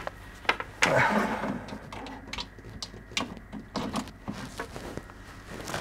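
Scattered light clicks and knocks from things being handled, about ten in all, the loudest about a second in, followed by a short rustle.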